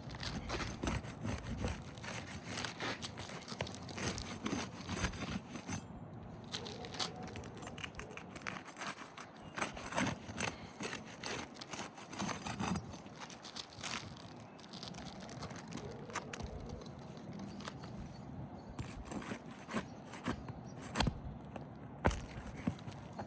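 Roofing nails being worked loose from shingles to remove a shingle: irregular scraping with many sharp clicks and knocks.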